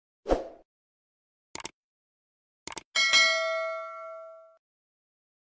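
Subscribe-button animation sound effects: a short thud, two quick pairs of clicks, then a notification-bell ding that rings out for about a second and a half.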